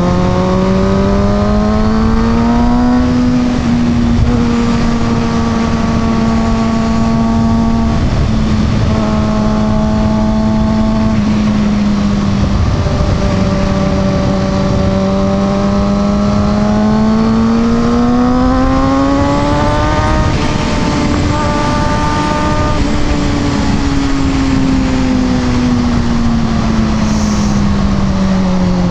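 Kawasaki ZX-6R 636 inline-four engine under way at speed, its pitch climbing and levelling off through the gears and then easing back, over steady wind rush at the helmet microphone. The engine note drops off sharply at the very end.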